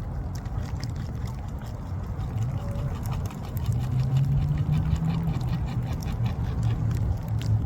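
Beaver gnawing and chewing on a branch, a run of irregular crunchy clicks, over a low steady hum that gets louder about halfway through.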